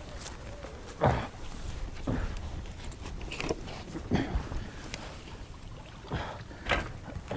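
A handful of short knocks and clatters, the loudest about a second in, over a steady low rumble.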